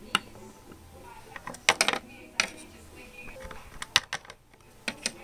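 Hard plastic Littlest Pet Shop figurines tapped down on a wooden tabletop as they are hopped along by hand: a scattered series of sharp clicks, with a quick cluster of several about two seconds in.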